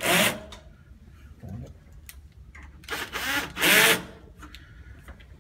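Cordless drill/driver driving wood screws into the faceplate of a mortise lock case in a wooden door, in two short runs: one right at the start and a longer one about three seconds in.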